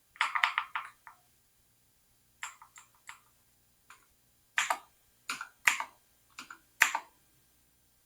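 Computer keyboard keys pressed while navigating BIOS settings: a quick run of about half a dozen clicks at the start, then single and paired keypresses scattered over the next several seconds.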